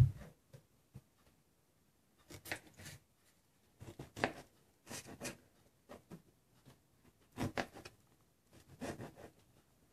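Intermittent handling sounds: short scrapes, rustles and taps at irregular intervals, with a sharper tap right at the start.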